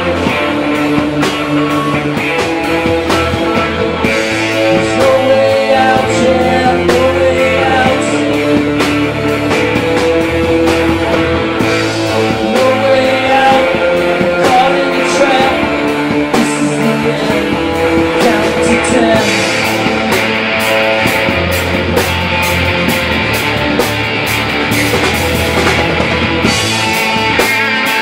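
Live rock band playing loud: electric guitars over a drum kit with a steady beat, the drum hits sharper in the second half.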